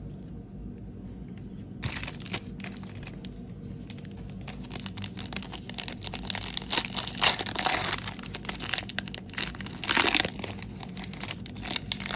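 Crinkling and tearing of a trading-card pack's plastic wrapper being handled and ripped open, starting about two seconds in and loudest in two spells near the middle and near the end.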